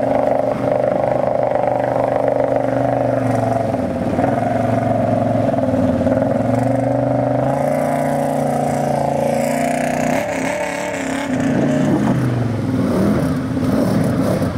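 ATV engine running hard and revving up and down as a four-wheeler plows through deep muddy water, with water splashing. The engine note drops about ten seconds in.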